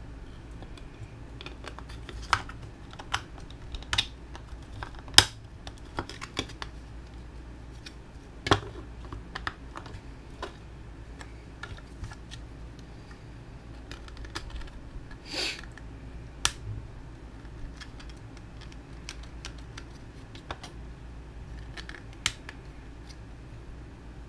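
Scattered small clicks, taps and knocks of hands handling small parts and tools, with one brief scrape past the middle, over a steady low hum.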